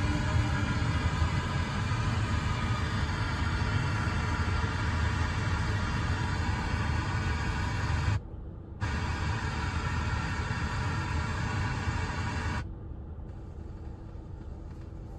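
Car FM radio output during a bandscan: a noisy, rumbling signal on 88.5 MHz. It cuts out for about half a second just after 8 seconds as the tuner steps to 88.9 MHz, then drops to a quieter, duller sound a few seconds later.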